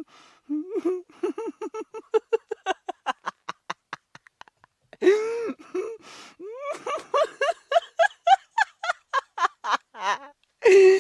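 A person laughing hard in quick, repeated 'ha' bursts that trail off about four seconds in. A long drawn-out vocal sound follows, then a second run of laughs, higher in pitch.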